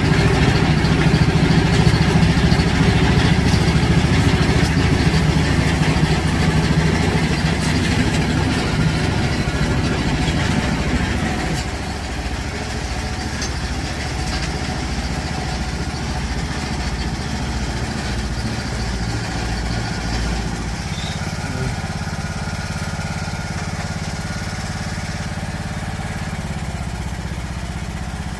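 Riding lawn mower engine running steadily, louder for the first dozen seconds, then dropping to a quieter, even note.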